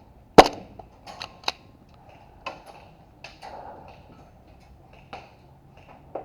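Airsoft guns firing single shots at irregular intervals: one loud shot about half a second in, then several fainter shots.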